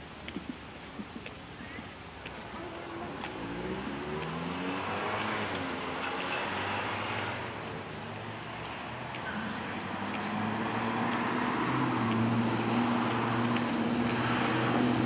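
Cars passing on a nearby road: engine and tyre noise swells and fades about three to eight seconds in, with the engine pitch sliding down as it goes by, then a second vehicle builds from about ten seconds on.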